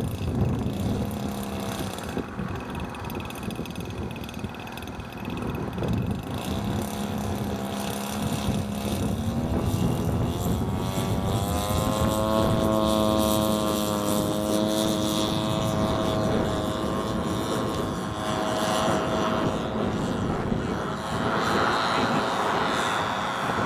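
Radio-controlled model biplane's engine and propeller, running low at first, then rising in pitch about ten seconds in as the throttle opens for the takeoff run. It holds a steady high note as the plane lifts off and climbs, growing fainter and noisier near the end.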